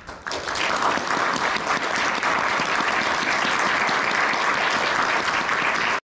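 Concert audience applauding, a dense steady clapping that starts about a quarter second in and cuts off suddenly near the end.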